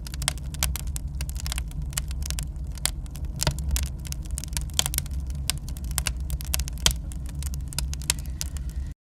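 Wood fire crackling in a fireplace: a steady low rumble of flame with irregular sharp snaps and pops, cutting off suddenly near the end.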